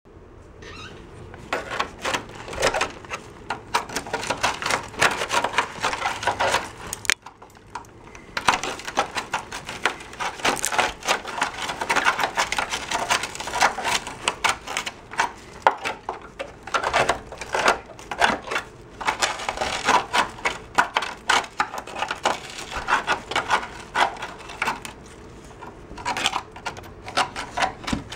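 A hand-held metal scraper picking and scraping flaking rubberized undercoating and rust scale off a truck's steel frame, a rapid, irregular run of scrapes and clicks. It pauses briefly about seven seconds in and again near the end.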